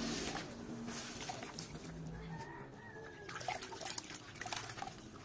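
Wet rayon fabric being kneaded and wrung out by rubber-gloved hands in a tub of mordant solution: squelching, with liquid splashing and dripping back into the tub in several short bursts.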